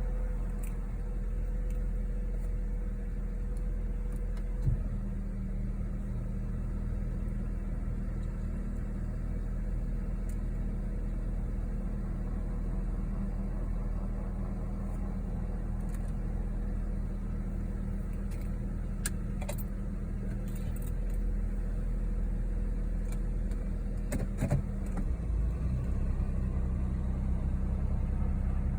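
2012 Honda Accord's 2.4-litre four-cylinder engine idling steadily after a cold start, with no grinding noise. A single click about five seconds in and a few clicks later on; the low hum gets a little louder about 25 seconds in.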